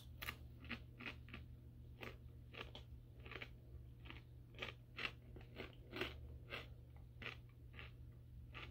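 Someone chewing crunchy rolled corn tortilla chips (Takis Explosion) close to the microphone, a run of faint irregular crunches about two a second.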